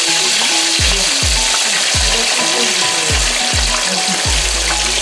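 Food frying in hot oil in a pan, a steady sizzling hiss, over background music with a deep, regular bass beat.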